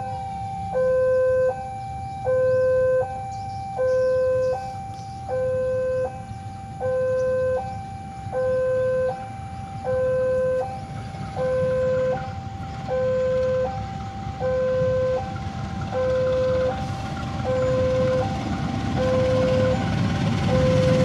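Electronic two-tone railway crossing alarm, a lower and a higher tone alternating about every 0.7 s. Toward the end the low rumble of an approaching CC206 diesel locomotive grows underneath it.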